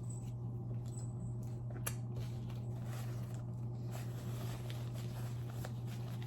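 Steady low hum under faint, scattered clicks and soft wet noises of a person chewing food with her mouth close to the microphone.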